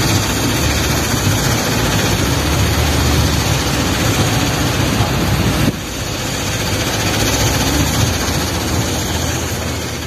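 Diesel engine of a wheel loader running as the machine drives, under a loud, even rushing noise. The sound drops a little in level suddenly, a bit over halfway through.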